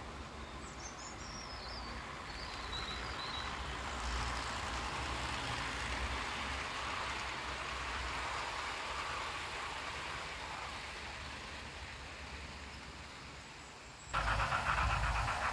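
A 00-scale model train rolling along the track, its running noise swelling as it comes closer and then fading as it moves away. Near the end it cuts suddenly to a louder, closer rolling with a fast, even clatter.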